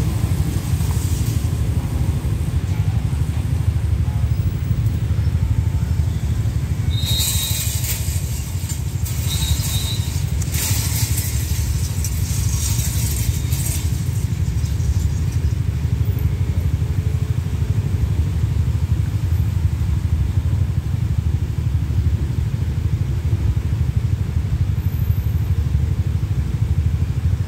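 Steady low rumble of idling motorcycles and road traffic. Between about seven and fourteen seconds in, a burst of hissing noise is heard, with two short high tones.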